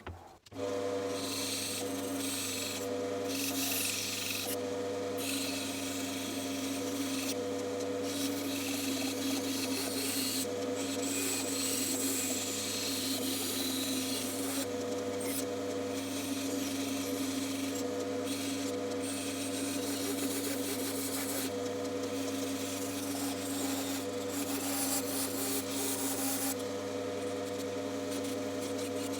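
Bandsaw running with a steady motor hum while its blade cuts through wood, the cutting hiss breaking off briefly now and then as the workpiece is turned or backed out. The sound starts abruptly about half a second in.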